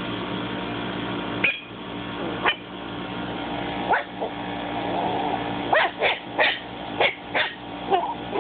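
Maltipoo puppy giving short, high yips and barks in play: a few spaced out at first, then a quick run of about five near the end. A steady hum runs underneath.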